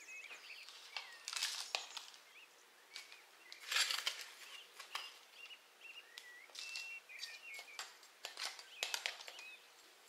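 Metal scoop digging into and tipping potting soil into plastic plant pots, a grainy scraping rustle in a few bursts, the loudest about four seconds in. Small birds chirp faintly in the background.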